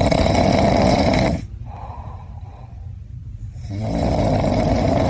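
A sleeping person snoring loudly: two long, rasping snores with a quieter breath between them.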